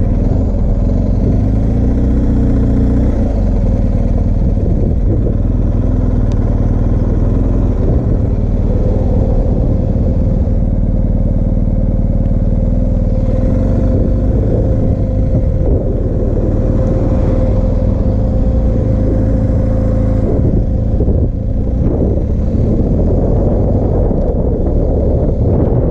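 BMW R1250GS Adventure's boxer-twin engine running steadily as the motorcycle rides along at low road speed.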